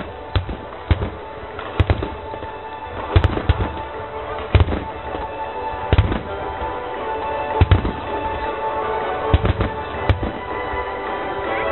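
Fireworks bursting, a dozen or so sharp bangs at uneven intervals, a second or so apart, with music playing underneath.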